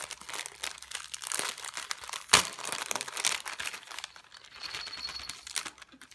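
Tissue paper and a clear plastic wrapper crinkling and tearing as a mail package is opened by hand, with one sharp snap about two seconds in and quieter rustling after.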